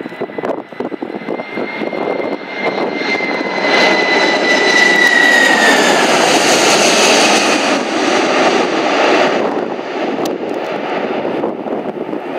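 Boeing 747-400's four jet engines passing low overhead on approach: a high whine that drops a little in pitch over a rising roar, loudest from about four to nine seconds in, then fading as the aircraft moves away.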